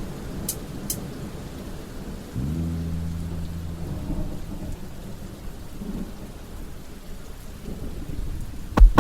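Rain-and-thunder sound effect: steady rain hiss under a low rolling rumble, with a low droning tone that slides up and holds for about a second and a half a couple of seconds in. Just before the end a heavy bass hit brings in the beat.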